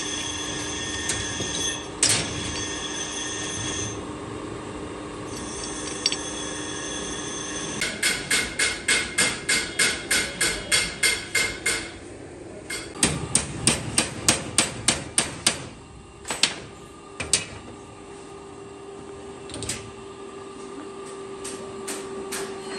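Rapid hammer blows on metal, about four a second with a bright ring, in two runs of a few seconds each, followed by two single blows. Before the hammering a bench grinder runs with a steady whine.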